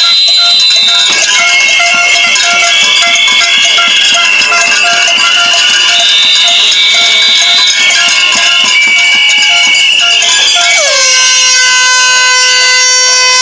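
Many handheld air horns blowing at once: a loud, dense cluster of held tones that overlap and shift as horns start and stop. A row of short repeated notes keeps a beat underneath. About eleven seconds in, a new group of horns comes in, each dipping briefly in pitch as it starts and then holding steady.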